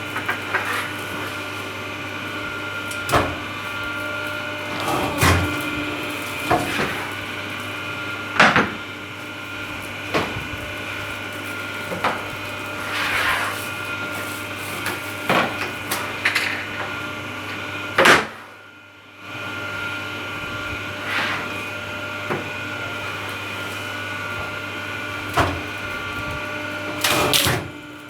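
Hydraulic C-frame cutting press running: its power pack gives a steady hum, while about a dozen knocks and clunks come at irregular spacing as the press cycles, along with a few short hisses. The hum drops out briefly a little past halfway.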